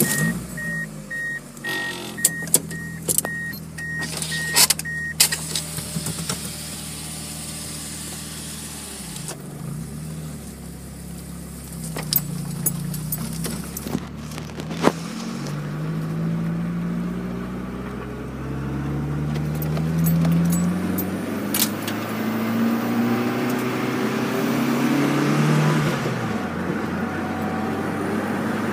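1998 Mitsubishi Eclipse GS four-cylinder engine, fitted with a cold air intake and a stainless header-back exhaust, starting and settling to idle, with a beeping chime for the first few seconds. It is then revved several times, each rev rising and falling in pitch, and the revs come closer together and run higher near the end.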